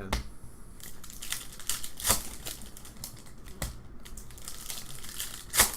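Plastic packaging of trading-card boxes and packs crinkling as it is handled, with scattered sharp crackles and taps; the loudest crackle comes near the end.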